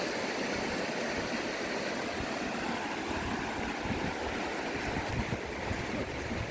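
Steady wash of sea surf on a beach, with wind buffeting the microphone, the buffeting stronger in the second half.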